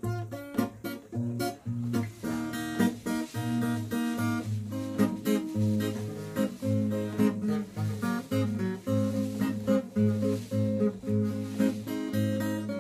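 Acoustic guitar playing, a run of plucked notes over repeated low bass notes.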